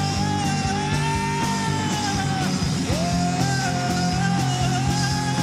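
Live rock band with electric guitar, bass guitar and drums playing under a singer's two long held 'whoa' notes. The first note breaks off about two and a half seconds in, and the second starts just before three seconds in.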